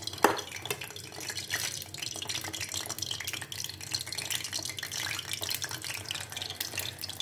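Plantain kola balls deep-frying in hot oil, a steady dense crackle and sizzle, with one sharp knock just after the start.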